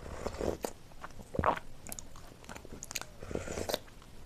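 Close-miked eating sounds: a mouthful taken from a plastic spoon, then chewing with sharp wet mouth clicks. The loudest moment comes about a second and a half in.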